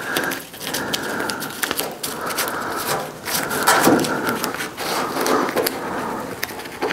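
Masking tape crinkling and crackling as fingers press and rub layers of it into the contours of a car's sheet-metal body panel.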